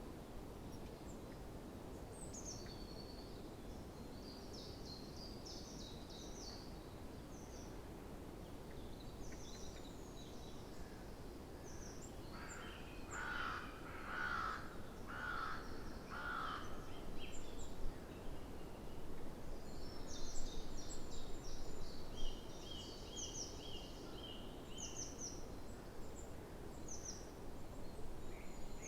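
Springtime birdsong: several small songbirds sing high chirps and trills over steady low background noise. About halfway through, a larger bird gives four louder, lower calls in a row, and later one bird repeats a single note several times.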